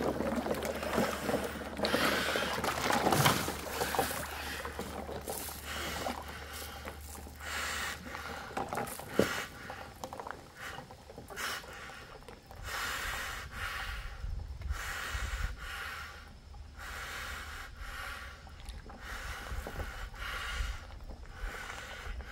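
Water and ice blocks sloshing in a stock-tank ice bath as a man lowers himself in, then his breathing through a snorkel while submerged, in and out in a steady rhythm about every second and a half.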